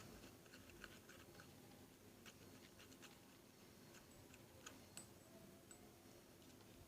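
Near silence with scattered faint small clicks and ticks, a few sharper ones near the middle and about two thirds of the way in.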